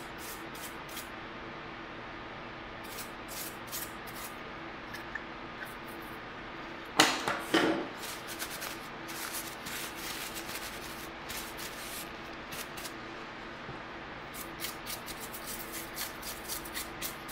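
Tissue rubbing and wiping over the plastic case of a Sony ICF-C212 clock radio, with scattered light clicks and taps of the plastic being handled. The loudest part is a pair of harsh rubs about seven seconds in.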